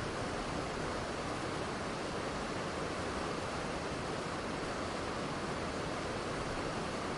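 Steady, unbroken rush of falling water from a waterfall, an even hiss with no changes or separate splashes.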